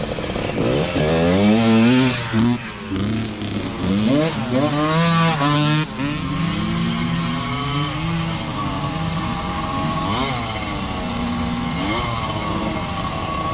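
Small micro (youth) dirt bike engines revving hard, the pitch climbing and dropping over and over with the throttle for the first few seconds, then holding steadier.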